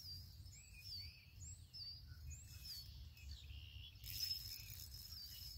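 A small bird chirping repeatedly, short high notes about two a second, over a low steady rumble. About four seconds in, a rushing hiss rises for over a second.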